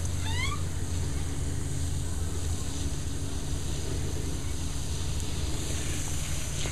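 Small water fountain running: a steady electric pump hum under running water. A brief rising chirp is heard just after the start.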